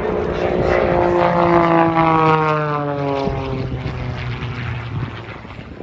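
Pitts S-1-11B aerobatic biplane's six-cylinder piston engine and propeller passing by at speed, its pitch falling steadily as it goes past and the sound fading toward the end.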